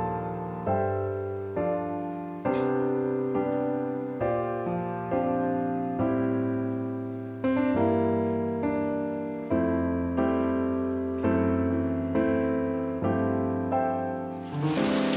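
Background piano music, a gentle melody of notes struck about once a second. A rustling noise joins the music near the end.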